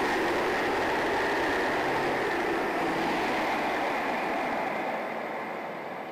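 A homemade centrifugal blower with a plywood impeller, driven by an electric motor, running at speed with a steady rush of air and a whine. About four seconds in it begins to fade as the fan runs down. The impeller is out of balance and vibrates noticeably.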